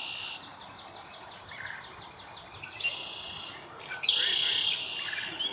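Overlapping high-pitched buzzy trills and chirps from small birds and insects, several callers taking turns, with the loudest trill starting about four seconds in.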